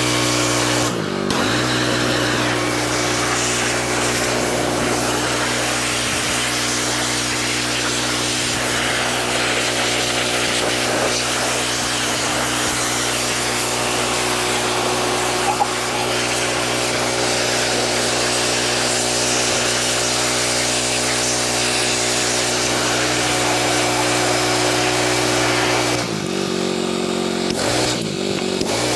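Gas pressure washer running steadily, with the hiss of its spray as the wand washes down a dirt bike. The spray cuts out briefly about a second in and twice near the end, and the engine note wavers each time.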